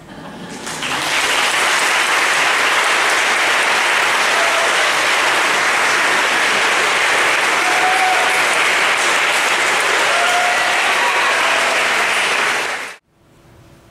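Audience applauding, starting about a second in and holding steady until it cuts off suddenly near the end.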